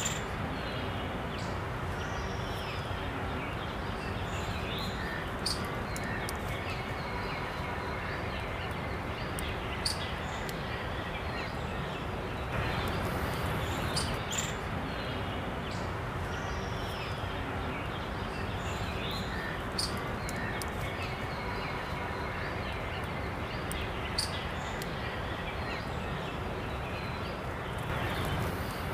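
Steady outdoor background noise with faint chirps and a few scattered sharp clicks.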